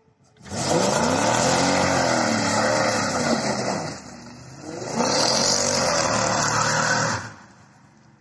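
Mercedes CLS 500 V8 with secondary cats removed and an X-pipe, accelerating hard in two loud pulls with a short drop in level about four seconds in. It fades as the car drives away.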